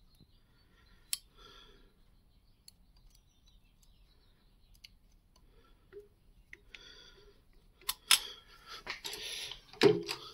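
Small metallic clicks and scrapes of a screwdriver tip working a tiny slotted screw into a metal part: one sharp click about a second in, scattered faint ticks, then a run of clicks and a louder clatter of metal handling near the end.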